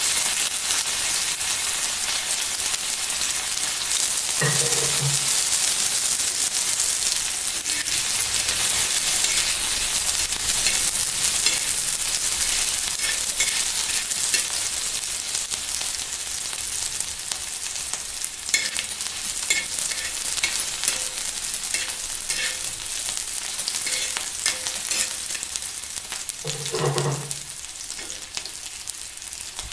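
Chopped ginger and green chillies sizzling in hot oil on a flat iron tawa. A metal spatula stirs and scrapes them across the griddle, the scraping heard more often in the second half.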